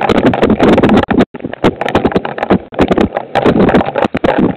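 Heavy rain pouring over a Ring security camera, with water and drops striking right at the microphone: a loud, dense clatter of close impacts. It cuts out briefly about a second in.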